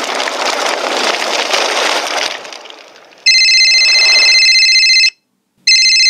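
A loud, noisy blast sound effect that dies away over about three seconds, then a telephone ringing twice, each ring a steady electronic trill of about two seconds.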